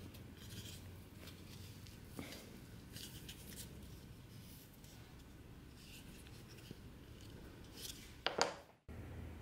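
Leather strap rubbing and scraping softly as it is threaded and worked through a leather loop on a wooden knife sheath, with a series of faint light scrapes. About eight seconds in comes a short, sharp squeak, then the sound cuts off suddenly.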